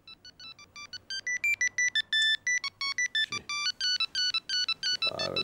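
Mobile phone ringing: an electronic ringtone of quick, high beeping notes in a fast, jumping melody, each note two tones sounding together.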